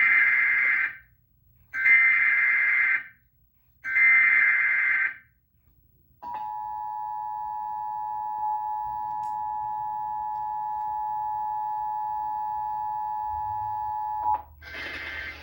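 Emergency Alert System warning from TV speakers. Three roughly one-second bursts of the SAME digital header tones come about two seconds apart. Then the two-tone attention signal (853 and 960 Hz) holds steady for about eight seconds and cuts off shortly before the end.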